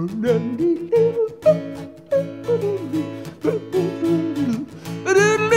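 Acoustic guitar strummed in a steady rhythm, with a man singing along in sliding, drawn-out phrases. The voice is loudest near the end.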